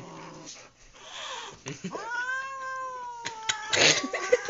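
Young kitten giving one long, drawn-out meowing yowl lasting about two seconds, starting a little under two seconds in, with a sharp click and a short noisy burst near the end.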